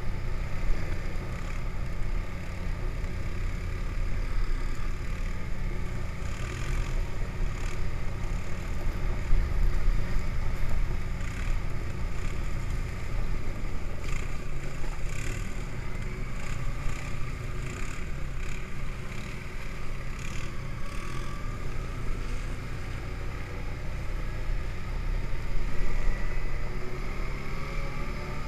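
ATV engine running steadily as the quad rides along a packed-snow trail, with a heavy low rumble and scattered knocks and rattles over bumps. Near the end the engine note rises as it speeds up.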